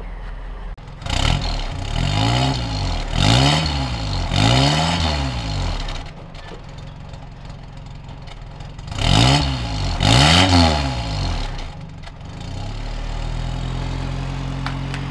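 A 1979 Toyota pickup's 20R inline-four engine revved through its new custom-built exhaust: about four quick throttle blips, each rising and falling in pitch, then a stretch of running, two more blips, and a steady run near the end.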